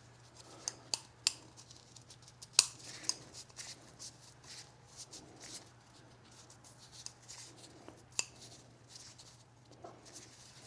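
Irregular small clicks and ticks of hands working a new rubber O-ring onto the plastic oil filter housing cap.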